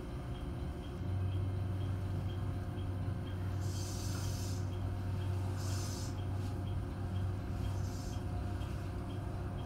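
Electric train running slowly, heard from inside the cab: a steady low hum that grows stronger about a second in, with short hisses about four, six and eight seconds in.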